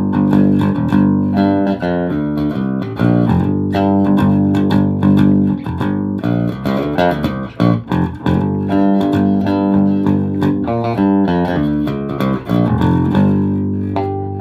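Cort Action PJ electric bass played through a Fender Rumble 25 bass combo amp on its original strings with no effects, a busy line of quickly plucked notes that shift in pitch.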